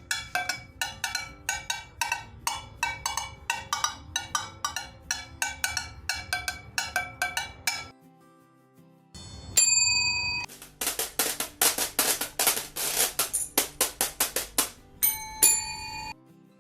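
Percussion accessories on a hand-drum washboard played in turn: first a quick run of ringing metallic strikes for about eight seconds, then after a pause a struck bell rings out briefly, then a run of sharp, hissy strikes, and near the end another short bell ring.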